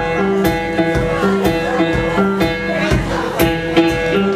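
Live band music: guitar over sustained notes, with a steady drum beat of about two hits a second.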